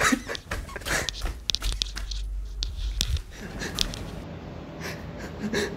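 Irregular clicks and rustling over a low rumble, giving way about three seconds in to quieter, even room tone.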